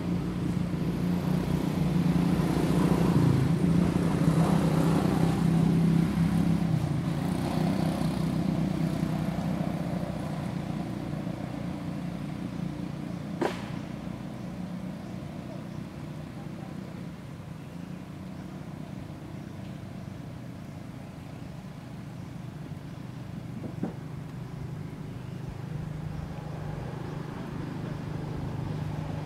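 A motor vehicle engine running, loudest in the first several seconds, then fading and rising a little again near the end. A single sharp knock falls about halfway through.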